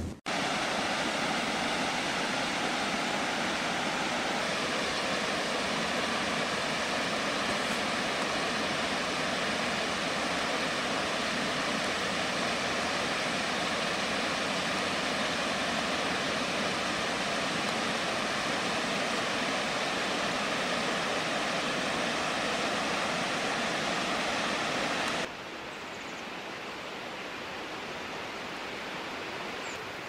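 Steady rush of water falling over a waterfall's several cascades. About 25 seconds in it drops suddenly to a quieter rush.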